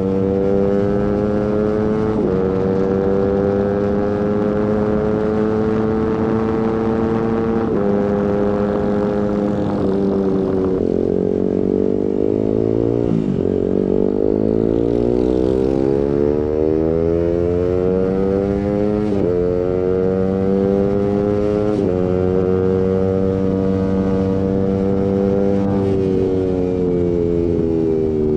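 Suzuki GSX-R150's single-cylinder engine through an aftermarket Prospeed exhaust, accelerating hard through the gears: the pitch climbs and drops a step at each upshift. About a third of the way in the revs fall away as the bike slows, then it pulls up through the gears again with three more upshifts.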